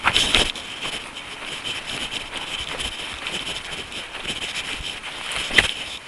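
A runner's footsteps with wind on the camera microphone, a louder gust in the first half second and a sharp click near the end.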